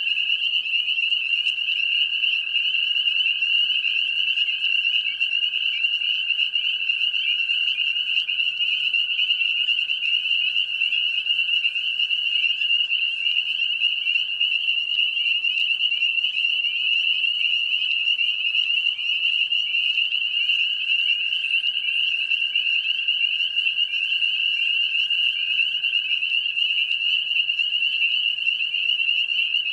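Dense chorus of spring peepers: many males giving overlapping high, rising peeps without a break, the mating call of the breeding season. A lower steady tone sounds beneath them in long stretches, broken around the middle.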